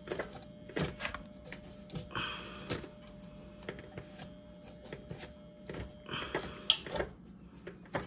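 Irregular clicks and taps as a gloved hand works the plastic blade of a refrigerator condenser fan motor that is burnt and seized, under a faint steady hum that stops near the end.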